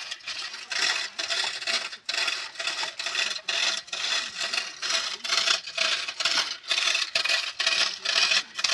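Rhythmic metallic scraping or rasping strokes, about two a second, steady throughout.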